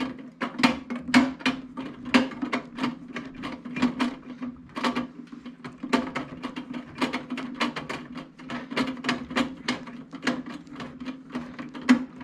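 A screwdriver driving a screw into the microwave's plastic underside to fix the turntable motor, making a rapid, irregular run of sharp clicks and knocks over a steady low hum.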